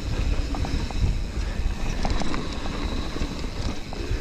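Mountain bike, a YT Capra, descending a rough, rocky trail: wind rushing over the action camera's microphone and a dense rumble from the tyres and bike, with scattered sharp clicks and rattles.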